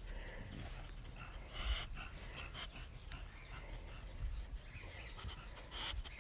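Faint outdoor ambience: a steady high-pitched insect drone with a low rumble, and a few soft knocks about two seconds in and again near the end.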